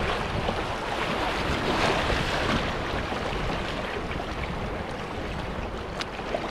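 Rushing whitewater of a river rapid churning around an open canoe as it is paddled through, with wind buffeting the microphone.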